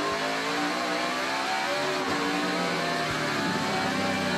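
NASCAR Cup car's V8 engine at racing speed. Its pitch climbs, drops back once about halfway through, then climbs again.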